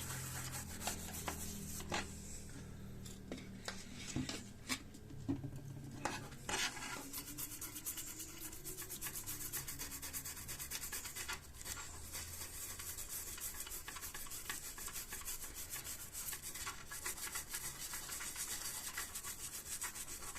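Toothbrush bristles scrubbing a soldered circuit board with rubbing alcohol, rapid back-and-forth scratching around the solder joints to clear flux residue. A few light knocks come first, and the scrubbing turns fast and steady from about six or seven seconds in.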